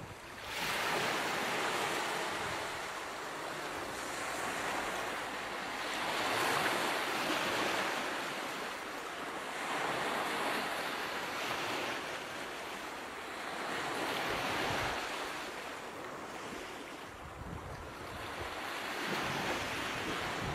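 Ocean surf: waves rushing in and drawing back, the rush swelling and fading every three to four seconds.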